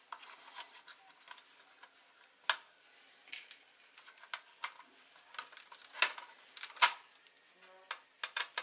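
Small screwdriver working the screws inside an opened Asus F540S laptop, giving a handful of sharp, irregular clicks and ticks against the screws and plastic chassis.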